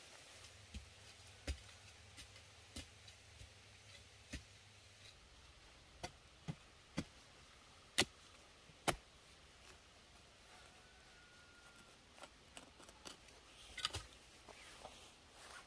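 Scattered sharp clicks and snaps at irregular intervals over a quiet background, the two loudest about eight and nine seconds in, with a quick cluster near the end.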